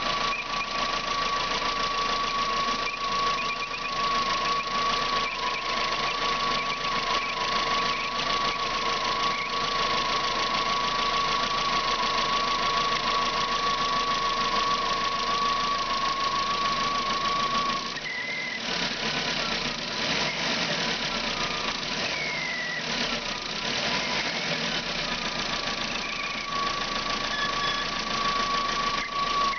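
Lifan Solano engine running with a steady high-pitched whistle from the water pump. The whistle stops about eighteen seconds in, a few short gliding chirps come through, and it returns near the end. The owner traced the whistle to the pump by taking the belts off.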